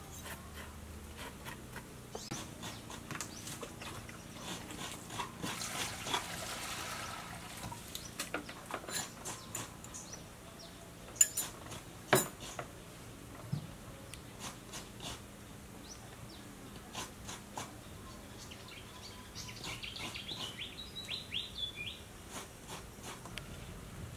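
Food-preparation handling sounds: scattered clicks, knocks and scrapes from hands working with coconut shells, a metal bowl and bananas, with two sharp knocks about halfway through.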